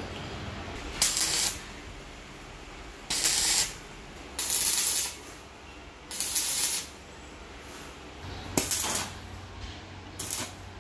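Stick welder tack-welding steel motorcycle sprockets together: six short bursts of arc hiss and crackle, each about half a second long.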